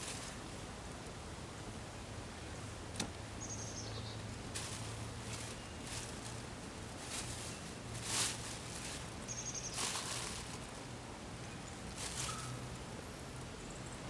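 Sneakers burning: the flames hiss steadily with scattered crackles and pops, the loudest about eight seconds in. A short high chirp sounds twice.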